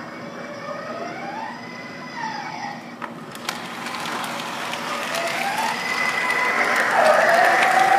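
MTH model R142A subway train running on its track, an electric motor whine gliding up and down in pitch, with a few sharp clicks about three seconds in. It grows steadily louder as the train comes up and passes close by.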